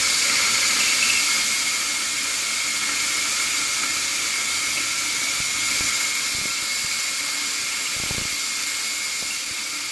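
Cordless drill boring pilot holes through a metal differential bracket, running steadily: a constant high whine over the hiss of the bit cutting.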